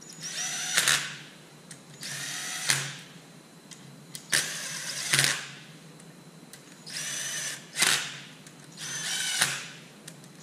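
Cordless drill-driver running flathead cap screws into an engine block five times in a row, each run about a second of steady whine ending in a short louder burst as the screw seats down. The screws are only being run in and seated, not torqued.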